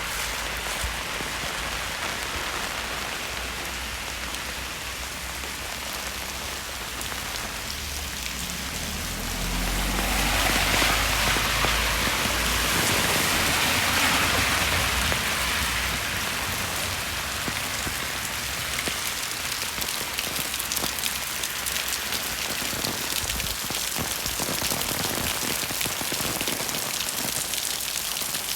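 Steady rain pattering on the wet street, with scattered drips. About ten seconds in, a louder hiss with a low rumble swells up and fades over about five seconds, as a vehicle passes on the wet road.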